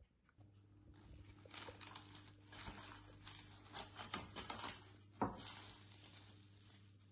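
Plastic cling film crinkling and crackling as it is pulled and stretched over a glass mixing bowl, with one sharp tap about five seconds in.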